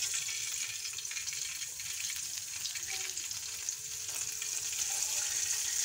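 Hot ghee tempering (tadka) with cumin seeds and whole red chillies sizzling with a fine crackle as it is poured onto kadhi.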